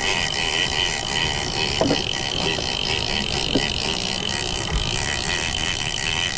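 Penn International 50VISW two-speed big-game reel being cranked steadily against a hooked tuna, its gears whirring, with a couple of light clicks.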